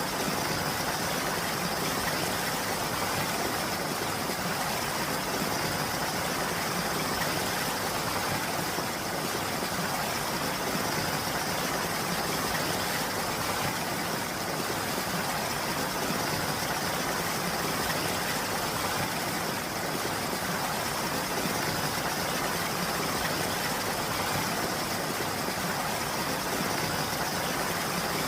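Steady, continuous rainfall, an even hiss of rain with no breaks or individual drops standing out.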